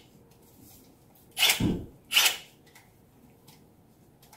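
Two sharp clacks, about two-thirds of a second apart, from handling a Milwaukee M18 Fuel cordless drywall screw gun and its battery.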